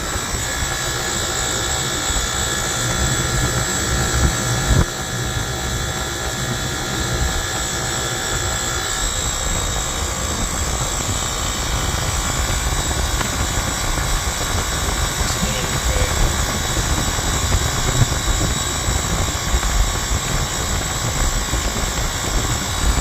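Rooftop HVAC unit running: a steady fan rush and motor hum, with a rough low rumble underneath.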